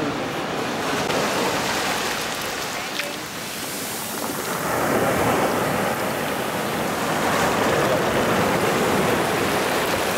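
Sea surf breaking and washing up the beach: a steady rush of waves that grows louder about halfway through.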